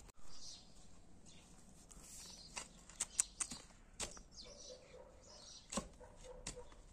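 Small short-handled spade digging into soil: scattered scrapes and chops of the blade in the dirt, some of them sharp clicks. A faint wavering tone runs through the second half.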